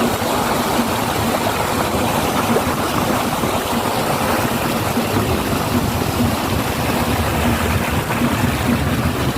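Motorboat under way: a steady rush of water along the hull over the low hum of its motor.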